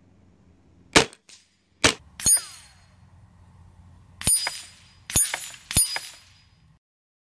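FX Monsoon semi-automatic PCP air rifle firing a string of shots, with pellets striking steel knock-down targets. There are about six sharp cracks in five seconds, most of them followed by a short metallic ring from the struck steel.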